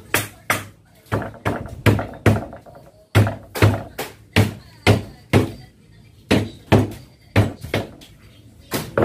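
A piece of wood knocked again and again on the top rail of an aluminium sliding-window frame, about two sharp blows a second with a deep thud in each and short pauses between runs, driving the frame onto its glass pane.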